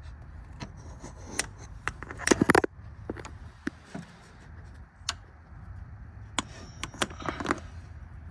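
Scattered clicks, knocks and rattles of hands handling hoses and parts in a car's engine bay, with a loud cluster about two and a half seconds in and another around seven seconds, over a steady low hum.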